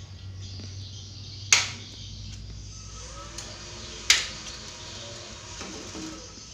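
Two sharp clicks about two and a half seconds apart, each ringing on briefly, over a steady low hum.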